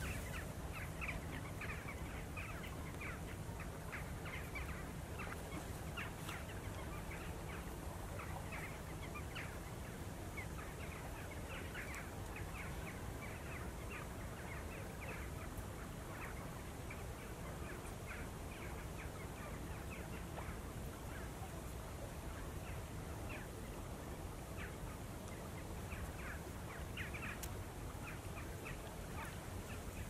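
Greater white-fronted geese calling: many short, high-pitched calls scattered throughout, at times several a second, over steady low background noise.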